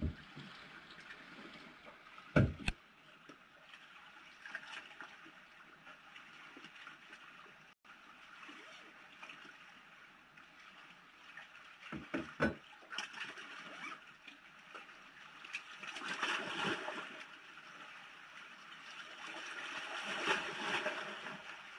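Small sea waves lapping and sloshing against shore rocks, with a few knocks and thumps from gear being set into a plastic kayak, the loudest about two seconds in.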